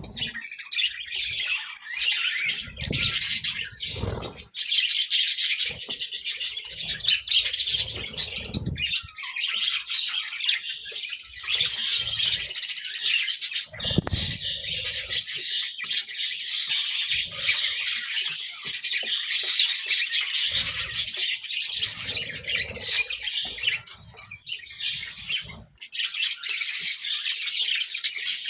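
A group of budgerigars chirping and chattering continuously, with a few short low thuds now and then.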